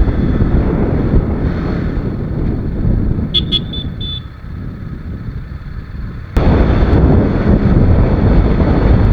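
TVS Apache RR 310's 312 cc single-cylinder engine and wind rush while riding at speed. It eases off for a couple of seconds, with a few short high beeps about three and a half seconds in, then cuts back in abruptly loud about six seconds in.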